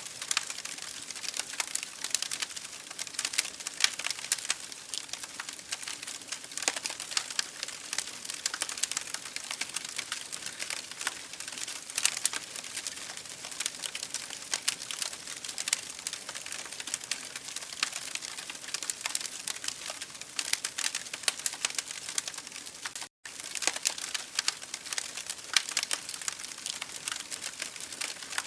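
Wood fire burning in an open fireplace, crackling steadily with a dense run of small sharp pops and snaps. The sound cuts out for a split second about two-thirds of the way through.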